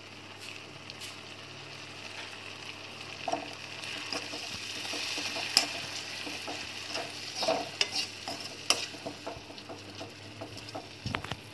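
Ground tomato paste and spice masala sizzling in hot oil in a metal kadai as a spatula stirs it, with scrapes and sharp knocks of the spatula against the pan. The sizzle swells a few seconds in.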